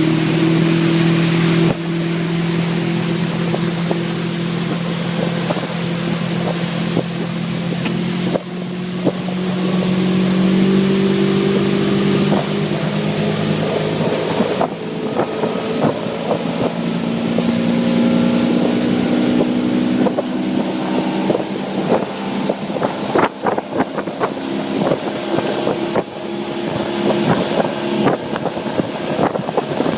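Motorboat engine running underway, its pitch wavering a little, with wind buffeting the microphone. About two-thirds of the way in, irregular slaps and knocks join it, such as the hull hitting chop.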